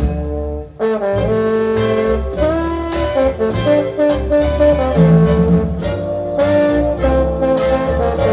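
Jazz brass ensemble playing from a mono vinyl LP, with trombone and saxophones over bass and drums. The band breaks off briefly about half a second in and comes back in under a second in.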